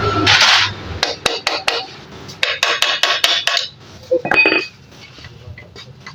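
Metal tools and engine parts clinking and knocking during motorcycle engine work. A quick run of sharp taps comes first, then a short metallic ring a little after four seconds in, then a few lighter ticks.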